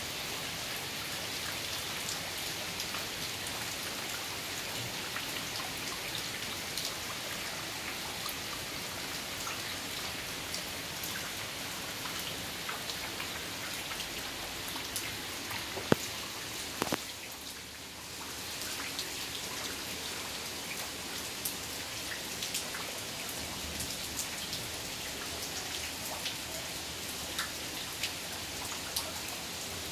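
Heavy rain pouring down: a dense, steady hiss of falling drops with scattered sharper drip taps. A single sharp knock about halfway through, after which the rain sounds briefly quieter for a second or so.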